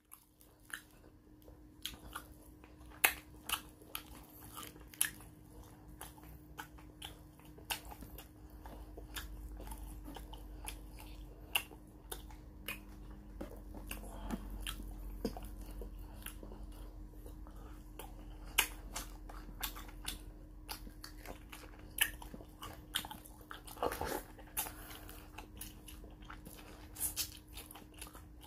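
Close-up eating sounds of a person chewing fried fish: many short, sharp mouth smacks and clicks of chewing and lip-smacking, with fingers picking at the fish. A faint steady hum runs underneath.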